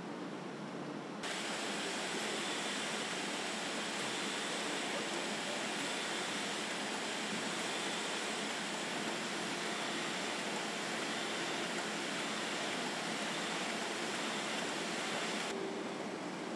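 Banknote printing press running: a steady, even hiss-like machine noise with no clear rhythm, which grows louder about a second in and changes character again near the end.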